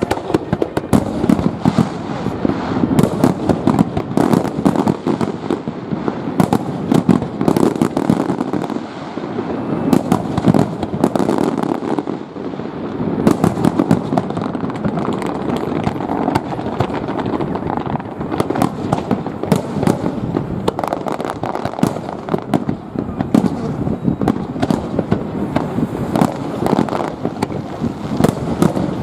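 Fireworks display: a dense, continuous barrage of aerial shell bursts, many rapid bangs overlapping without a break.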